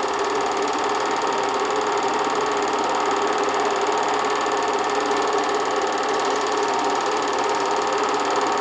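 8mm film projector running: a steady mechanical whirr with a fast, even rattle of the film advancing.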